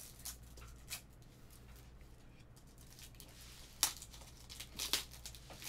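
Light handling of trading cards and their cardboard box: scattered soft clicks and brief rustles, with a sharper click about two-thirds through and a few more near the end.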